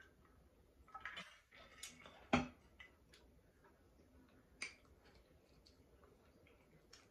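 Close-up drinking and eating sounds: scattered soft clicks and gulps. About two and a half seconds in comes a single thud, the loudest sound, as an insulated water bottle is set down on the table. After that come light clicks of a fork on a plate.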